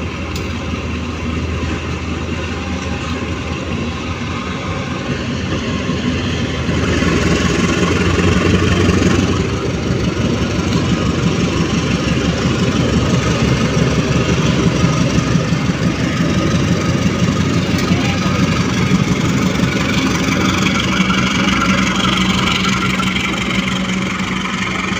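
Diesel engine of a CC 201 diesel-electric locomotive running steadily at low revs. It grows louder for a couple of seconds about seven seconds in, then settles into a steady throb.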